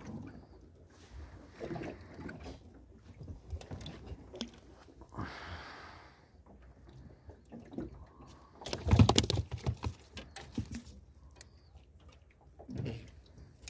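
Knocks and handling noise in a small aluminium fishing boat, with a brief hiss about five seconds in and a louder clatter of sharp knocks about nine seconds in.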